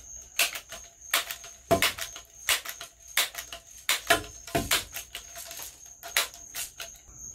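Irregular clicks and small knocks of a pump-up BB gun being handled and loaded with a pinch of salt as a makeshift shot load, over a steady high cricket trill.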